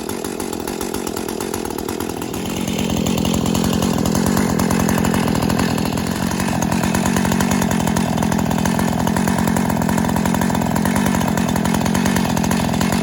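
Brand-new Husqvarna 450e Rancher chainsaw's two-stroke engine running steadily, growing louder about two and a half seconds in.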